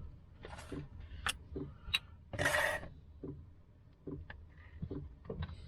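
Small knocks and clicks of kitchen things being handled while working bread dough, with a half-second scrape about two and a half seconds in.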